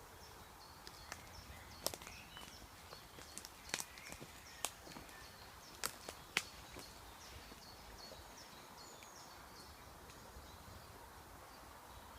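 Footsteps through forest undergrowth, twigs snapping and crackling in sharp irregular clicks, most of them in the first half. A small bird chirps in short, high, repeated notes throughout.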